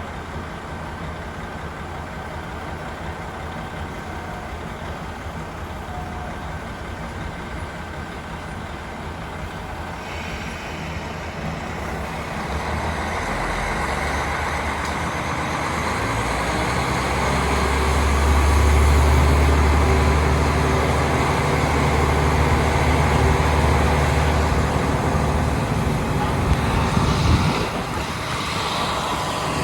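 Diesel engine of a KiHa 40 railcar heard from inside the car: a steady low hum at first, then the engine throttles up into a loud low drone from about halfway in, which drops away abruptly near the end.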